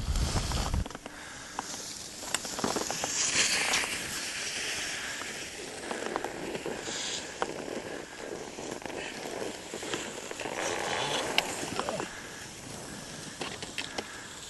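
Snow crunching and scraping underfoot and under skis, with many scattered sharp clicks and two swells of hiss. A rumble of wind on the microphone cuts off abruptly under a second in.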